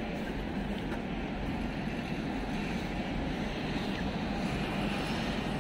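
Steady city street noise, mostly the low rumble of passing traffic.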